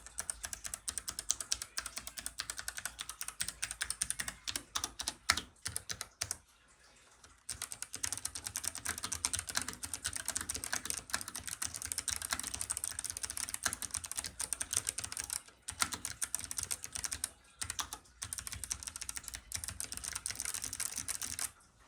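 Fast typing on a Hansung TGF ART mechanical keyboard: a dense, continuous run of key clicks. It breaks off for about a second a third of the way through, and briefly twice more in the second half.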